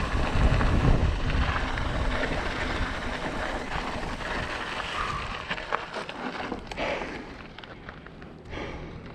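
Wind buffeting the microphone and mountain-bike tyres rolling over a gravel dirt road, fading as the bike slows down. A few short clicks and knocks in the second half.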